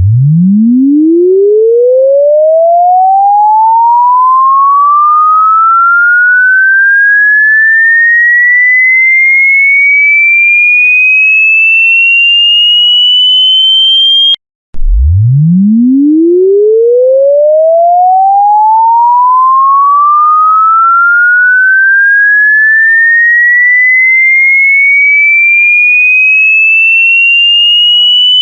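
Electronic sine-wave test tone sweeping steadily upward in pitch, from a deep hum to a high whistle over about fourteen seconds. About halfway through it cuts off abruptly and starts again from the bottom.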